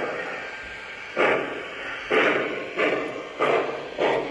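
A K-Line O-scale steam locomotive's onboard sound system, fitted with a replacement speaker, plays steam chuffs as the engine pulls away. There are about six chuffs, and they come quicker as it gathers speed.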